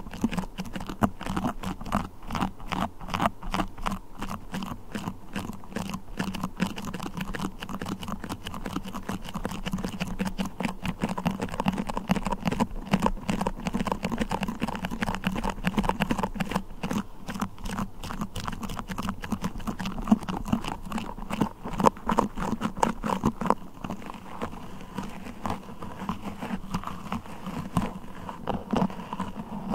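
Beeswax and a sticky crawler toy handled close to the microphone: a dense, fast stream of sticky crackling and clicking.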